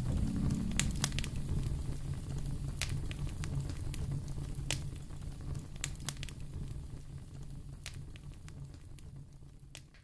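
Wood fire crackling, with scattered sharp pops over a low steady rumble, the whole gradually fading out toward the end.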